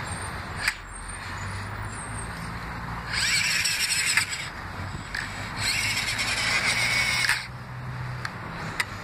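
Radio-controlled toy truck's motor and gears whining in two bursts of throttle, the first about three seconds in and the second a couple of seconds later, each cutting off sharply.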